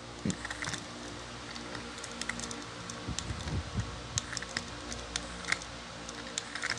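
Small battery motor of a TrackMaster toy train engine running while held in the hand: a faint steady whir, with scattered sharp clicks from the gears and handling.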